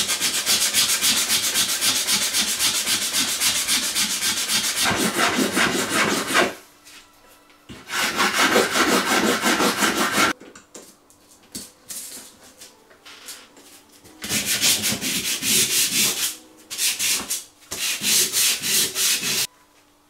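Metal pocket-knife liner plates rubbed by hand against coarse sandpaper in fast back-and-forth scraping strokes. The strokes come in three long runs with short pauses between them, and only light scattered scrapes fill the middle gap.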